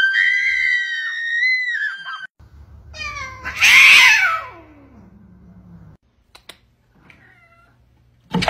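Domestic cat yowling: a long drawn-out cry held steady for about two seconds, then a loud harsh yowl that slides down in pitch about four seconds in.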